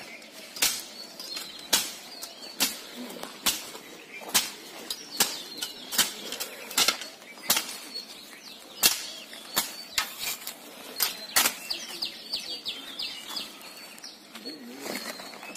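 A machete slashing through grass and weeds with a sharp swish and hit, about once a second.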